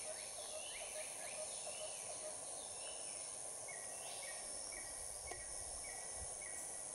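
Bush ambience: a steady high insect drone, with several birds calling over it, swooping calls in the first half and then a run of short, even notes about two a second in the second half.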